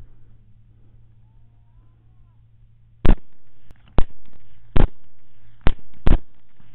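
Rifle shots fired in quick succession, five of them starting about three seconds in. Each is a sharp crack that trails off over about half a second.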